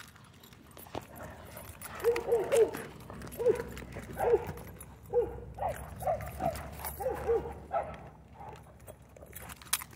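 A dog whining and yelping in a string of short, high, rising-and-falling cries that start about two seconds in, with a faint low hum underneath.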